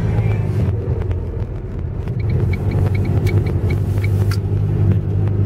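Car driving, heard from inside the cabin: a steady low engine and road drone. A quick run of light ticks comes through it for about two seconds in the middle.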